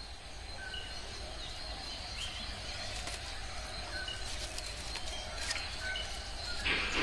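Forest ambience: a steady insect hiss with a thin, high steady tone, and short bird chirps every second or two.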